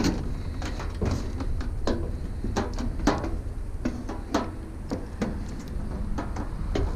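Irregular clicks, knocks and light clanks of hands working at the parts of a discarded clothes dryer, over a steady low rumble.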